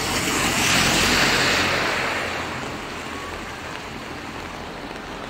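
A vehicle's tyres hissing past on a wet street, swelling to a peak about a second in and fading, leaving a quieter steady hiss of the rainy street.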